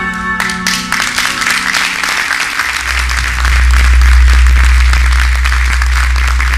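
A live band's closing chord dies away in the first second and a concert audience breaks into sustained applause. About three seconds in, a steady deep low hum comes in beneath the clapping.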